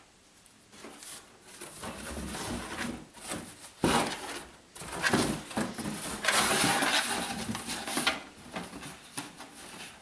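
Cardboard boxes and craft materials being handled: irregular rustling, scraping and knocks, with a sharp knock about four seconds in and a longer hissing rustle about six to eight seconds in.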